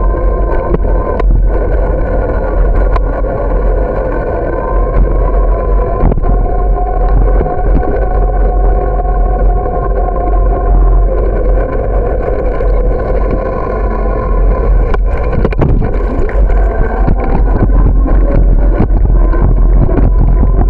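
Riding noise from a camera carried on a moving bicycle: wind rumbling on the microphone under a steady droning hum, with occasional knocks from bumps in the path.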